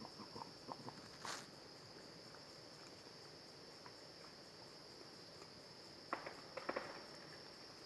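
Faint steady insect chorus, a continuous high trill like crickets. Soft rustles and clicks break in: one about a second in, and a quick cluster of them near the end.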